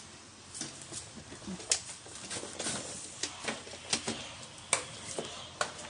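Household rubbish being handled and shifted: about ten irregular sharp clacks and knocks, with rustling in between.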